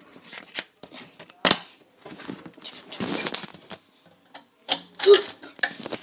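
Hand-handling noise of metal scissors on a paper-covered desk: a string of clicks, taps and knocks with some paper rustling, the two loudest knocks about a second and a half in and about five seconds in.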